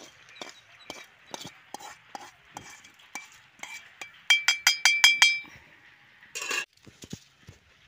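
Metal spoon scraping and knocking against a metal pan as roasted dry red chillies and spices are emptied onto a stone grinding slab. Light scrapes and clicks throughout, with a quick run of about eight ringing taps in a second around the middle, then a short scrape.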